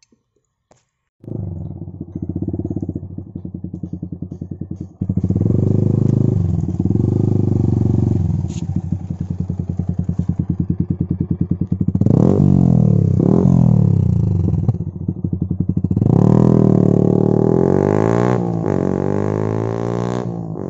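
Yamaha R15 V3's 155 cc single-cylinder engine running loud through an Akrapovic full-system exhaust with the dB killer removed. The sound starts suddenly about a second in. The revs rise and fall several times, and near the end the pitch sweeps up and then down as the bike passes.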